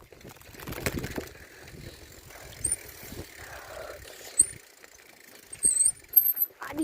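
Bicycle ridden over rough off-road ground: steady tyre noise with irregular knocks and rattles, and a few short high squeaks in the second half.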